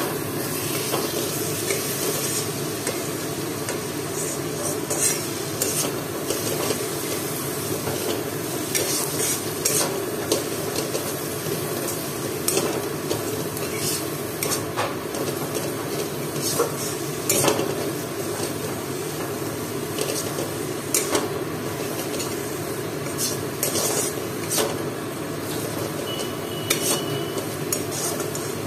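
Onion-and-spice masala sizzling as it fries in a steel kadai, while a metal spatula stirs it and scrapes and clinks against the pan at irregular moments throughout.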